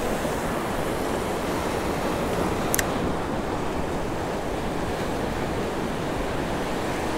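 Surf breaking and washing over jetty rocks, a steady rush of water with wind on the microphone, and one short click about three seconds in.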